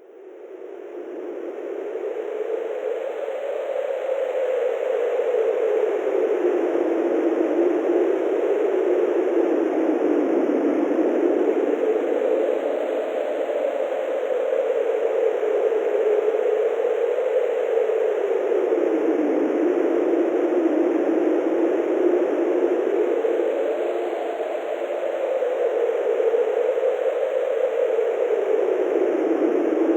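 Wind sound effect: a steady rushing, howling noise whose pitch slowly rises and falls, fading in from near silence over the first few seconds.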